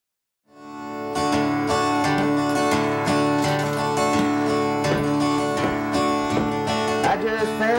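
Two acoustic guitars playing a country song's intro together, strummed and picked in a steady rhythm, fading in about half a second in.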